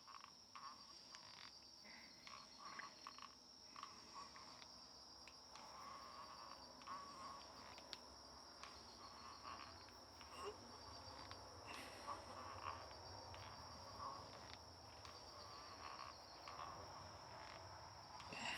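Faint night insects, crickets by their short chirping trills, repeating every second or two over a steady high whine, with a few faint clicks.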